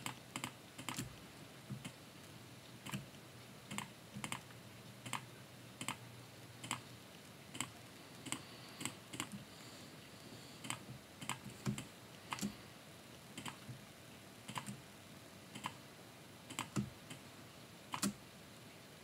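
Faint clicking of a computer mouse and keyboard keys while painting in Photoshop, a click or a quick pair of clicks every second or so at uneven spacing.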